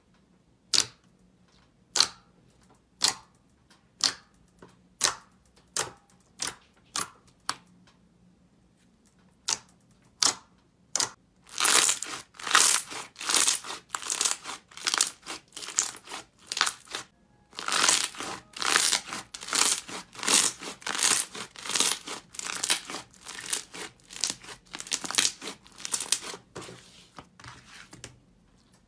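Slime being handled and squeezed, giving sharp single pops about once a second at first, then a dense run of crackling pops from about the middle on, with one short break.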